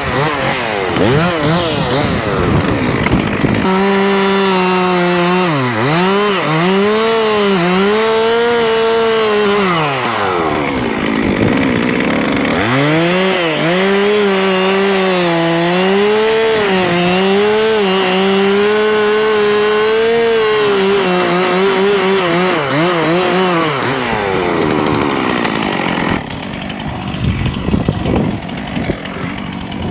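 Chainsaw cutting into a tree at full throttle, its engine note wavering and dipping as the chain loads up in the wood. The revs drop back briefly about ten seconds in. Near the end the saw comes off the cut and the sound turns quieter and uneven.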